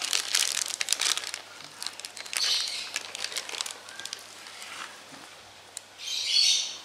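Thin plastic bag crinkling and rustling in bursts as spoonfuls of bait are pushed into it, with the loudest rustle near the end.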